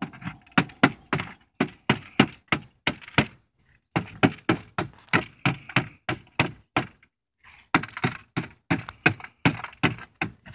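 A hammer tapping rapidly at a metal pipe flashing on a concrete roof tile, about four sharp knocks a second, in three runs with two short breaks.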